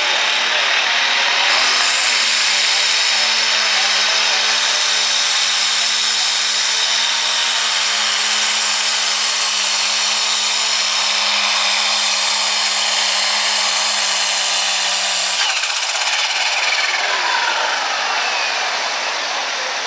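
Light super class pulling tractor's engine running flat out under load through a pull, a loud, steady high-pitched whine. About fifteen seconds in the engine backs off and its pitch falls away as it winds down.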